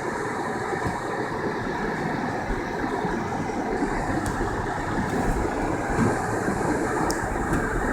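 Steady rumble of a car being driven on a snowy road, heard from inside the cabin: engine and tyre noise running evenly.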